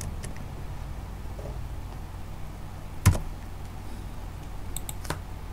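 A few computer keyboard keystrokes as code is typed: a faint click near the start, a sharper, louder key press about three seconds in, and a couple of light clicks near the end, over a low steady hum.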